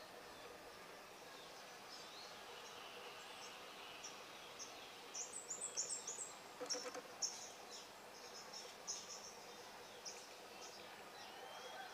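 Birds chirping over a faint outdoor hiss: quick high chirps and short sliding calls, busiest around the middle.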